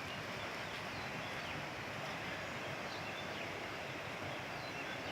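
River rapids and a small waterfall rushing, heard as a steady, even wash of water.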